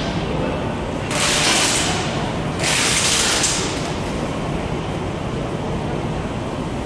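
Truck workshop din: a steady low rumble, with two hissing bursts of about a second each, one about a second in and one near three seconds.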